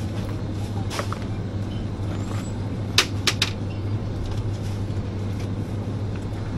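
Supermarket background: a steady low hum with a soft haze of shop noise, one sharp click about a second in and three sharp clicks in quick succession about three seconds in.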